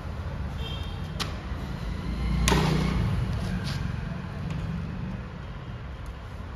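A sharp metal knock about two and a half seconds in, with a few lighter clicks, as a two-stroke motorcycle exhaust silencer is handled while its rear mesh is being worked loose. Under them is a steady low rumble.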